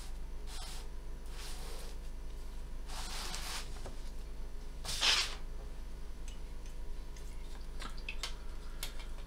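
Pen drawing lines on paper: a few short scratchy strokes, the loudest about five seconds in, over a steady low hum. A few light clicks near the end.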